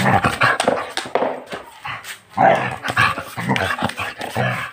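A pet dog vocalizing right at the phone, in two bouts of about two seconds each with a short break about halfway through.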